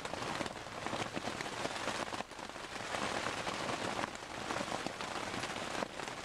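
Hail and rain coming down steadily: a dense hiss packed with many small, sharp ticks of hailstones striking.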